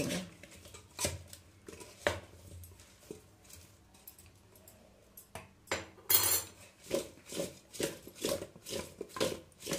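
A steel spoon clinks and scrapes against a stainless steel pot while stirring cut tomato pieces. From about six seconds in, the pot is shaken and tossed to mix the tomatoes, with a run of knocks about three a second.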